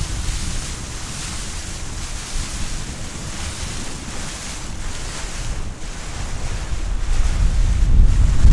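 Wind noise on the microphone over choppy, washing water, the low rumble of the gusts growing stronger near the end.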